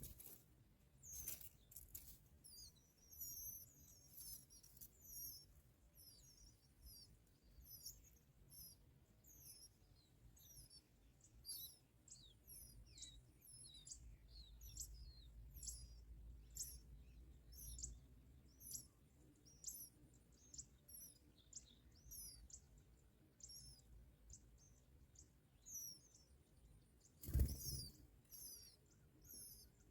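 Bar-winged prinias chirping at the nest: short, thin, high chirps repeated about twice a second. A brief loud burst of noise comes near the end.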